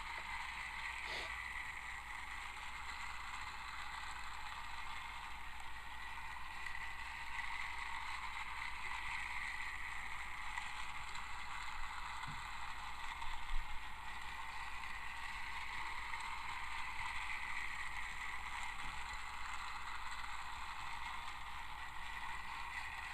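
Battery-powered TrackMaster Armored Thomas toy engine running along its plastic track, its small motor and gears giving a steady high whir, with a brief knock about thirteen seconds in.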